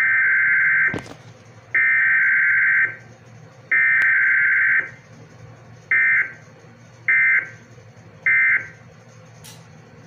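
Emergency Alert System SAME digital data tones for a Required Weekly Test. Three long bursts of about a second each (the header, sent three times) are followed by three short bursts (the end-of-message code, sent three times), with no attention tone between them.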